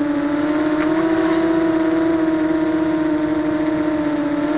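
ZMR250 racing quadcopter's brushless motors and propellers whining steadily, picked up by the keycam mounted on the quad itself, the pitch rising and falling slightly. A brief faint click about a second in.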